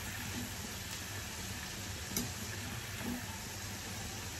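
Cornflour-coated sweet corn kernels sizzling steadily as they deep-fry in hot oil in a steel kadai, now golden brown and being lifted out with a slotted spoon. A single light click about two seconds in.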